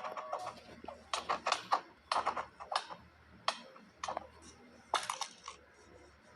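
A series of irregular sharp clicks and knocks that stop about five and a half seconds in.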